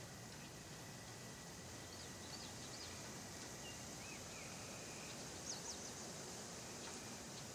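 Faint outdoor ambience: a steady background hiss with a few brief bird chirps scattered through it, and a thin steady high tone that stops about three seconds in.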